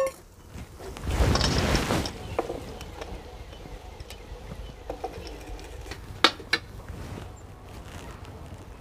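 Handling noises: a rustle lasting about a second, then two sharp clicks a few seconds later, over a faint steady outdoor background.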